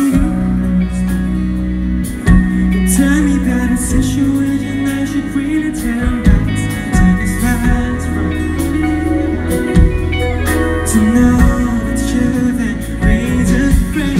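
Live rock band playing through a club PA: electric guitars, bass guitar and drum kit with keyboard, and a male lead vocal singing.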